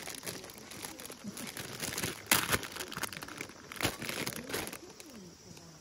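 A clear plastic bag of edamame pods crinkling as it is handled, in irregular bursts that are loudest about two seconds in and again near four seconds.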